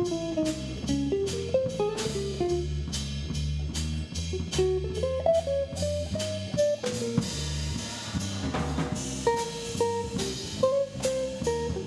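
Live jazz trio playing: a hollow-body archtop electric guitar runs a single-note melody line over electric bass and a Tama drum kit with steady cymbal strokes.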